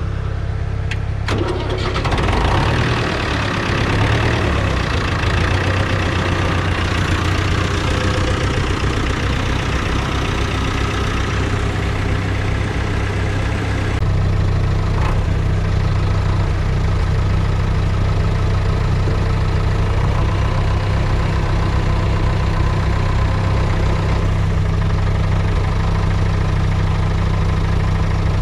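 David Brown tractor engine starting about two seconds in after a few clicks, then running steadily at idle.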